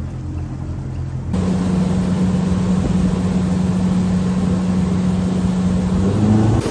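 A 175 hp outboard motor driving a boat. It starts with a low, even hum, and about a second in gives way to a louder run at speed: a steady engine tone over rushing wind and water. The engine note rises slightly near the end.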